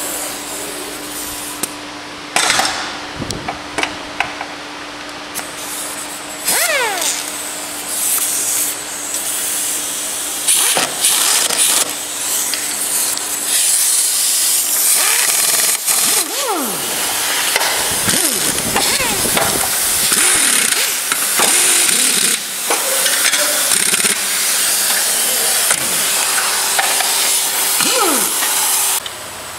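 Cordless power driver whirring in short spurts, its pitch rising and falling as it spins up and slows, among clinks and knocks of hand tools and fasteners on a small motorcycle engine. A steady hiss runs underneath through the second half.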